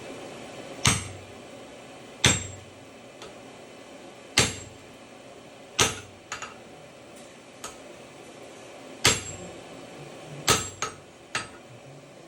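Hammer blows on a hot tomahawk on an anvil during a forge-welding heat: about seven heavy, spaced strikes a second or two apart, each ringing briefly, with a few lighter taps between.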